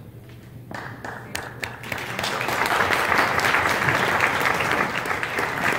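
Audience applauding, starting faintly about a second in and swelling to full, steady clapping.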